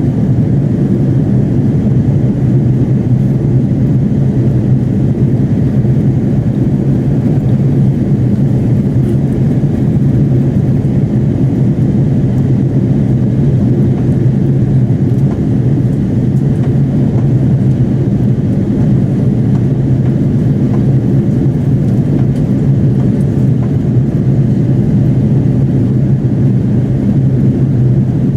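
Steady cabin drone of an Airbus A330-300 airliner in flight: a low, even hum of engine and airflow noise that does not change.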